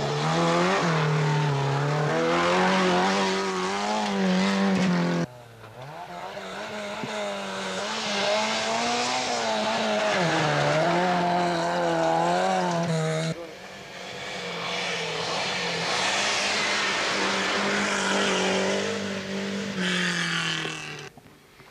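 Rally car engines driven hard on a gravel stage, one car after another, their pitch rising and falling as they rev. The sound drops off suddenly about five seconds in and again about thirteen seconds in, where one car's engine gives way to the next.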